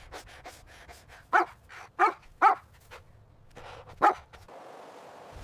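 A dog barking: four loud barks about a second and a half in, at two seconds, at two and a half seconds, and at about four seconds, with softer short sounds between them.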